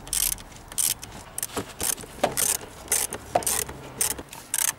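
Socket ratchet clicking in short rasping runs, about two a second, as hose-clamp screws and a bolt are being undone.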